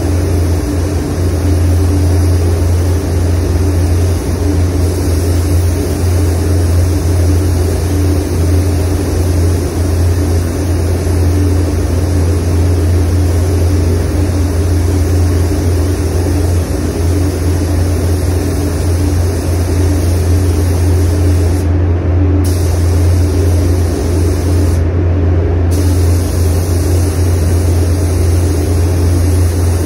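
Compressed-air spray gun hissing as it lays a colour coat on a car bumper, over the steady low hum of the spray booth's air system. The hiss cuts out twice for under a second, about three-quarters of the way in, as the gun trigger is let off.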